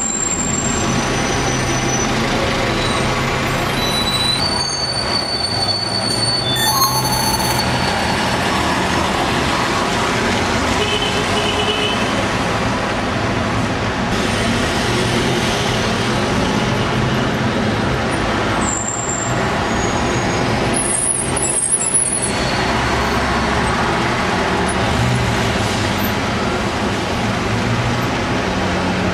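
Busy street traffic: diesel engines of double-decker buses and taxis running and passing, with a few short high-pitched squeals over the steady engine noise.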